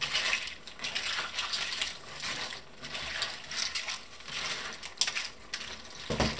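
Clams in their shells clinking and scraping against one another and the pan as they are stirred in sauce with a spatula, in irregular rattling strokes.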